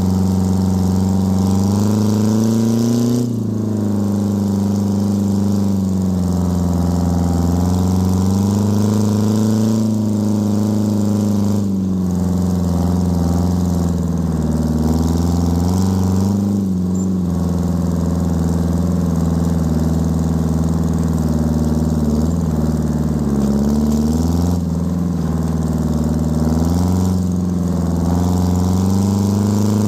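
Detroit Diesel 4-53 two-stroke diesel in a 1950 Oliver tractor running hard while pulling a disc in 6th gear. Its pitch sags and recovers several times as the load changes.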